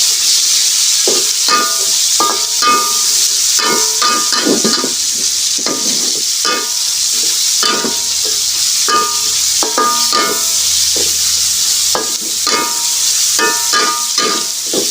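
Red onions sizzling in hot oil in a wok, stirred with a spatula that scrapes and knocks against the pan many times, each knock ringing briefly.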